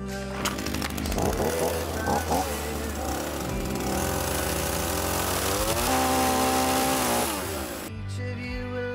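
Sterwins chainsaw running and cutting through a wooden beam. Its whine drops in pitch and holds steady about six seconds in, then falls away and stops about eight seconds in.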